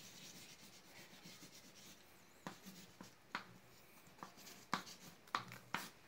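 Colouring strokes on drawing paper. Faint rubbing at first, then a run of short, sharp scratching strokes through the second half.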